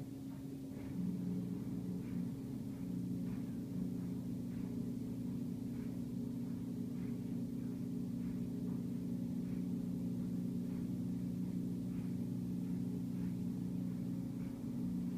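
Steady low mechanical hum with several fixed pitches, a little louder from about a second in, with faint scattered soft ticks over it.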